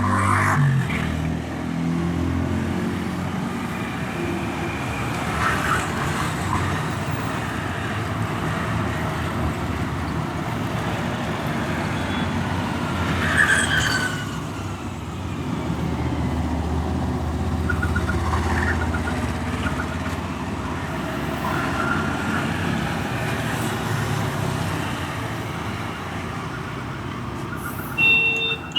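Street traffic: vehicles passing with a steady low rumble, with a short high two-tone beep near the end.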